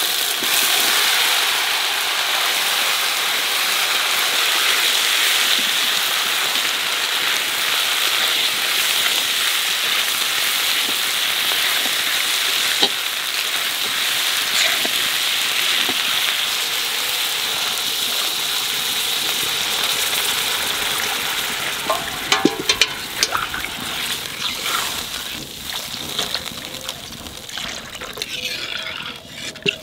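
Potato pieces frying in hot oil with a ground spice paste in a large metal kadai, a loud steady sizzle. After about twenty seconds the sizzle dies down into the clinks and scrapes of a metal spatula stirring, and near the end water is poured into the pan.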